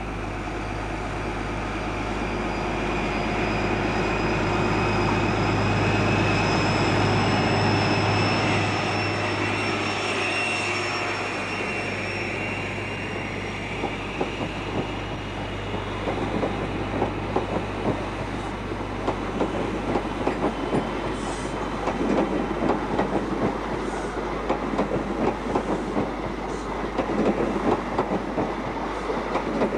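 An InterCity train of Mk3 coaches running past along the platform line. First comes a steady hum with a faint whine rising slightly in pitch as the leading vehicle goes by, then a steady wheel clatter over the rail joints that grows more distinct toward the end.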